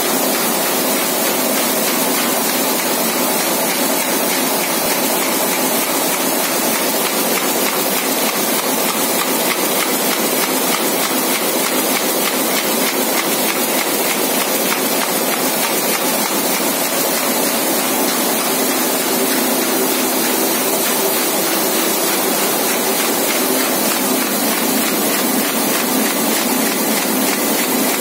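Komori Lithrone 426 four-colour sheetfed offset press running: a steady, dense mechanical clatter of very fast ticks with a high hiss throughout.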